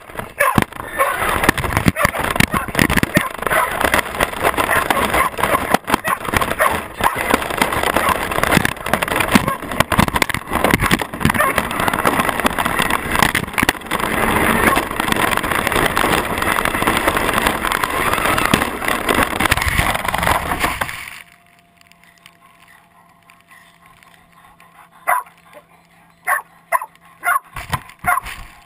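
Traxxas radio-controlled truck driving over grass, heard from a camera mounted on its body: a dense, rattling racket full of knocks and jolts. About 21 seconds in it cuts off suddenly to a faint steady hum, with a few short sharp sounds near the end.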